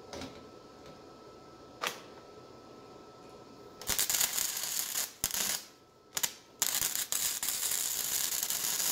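Flux-core wire-feed welder arc crackling as a nut is welded onto a small steel plate. It runs three times: about a second and a half starting near four seconds in, a short burst just after six seconds, and a longer run of about two seconds near the end. Before the welding, two light clicks.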